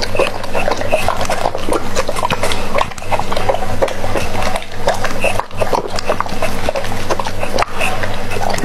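Doberman pinscher eating raw meat from a plate: quick, irregular wet chewing and smacking, with a steady low hum underneath.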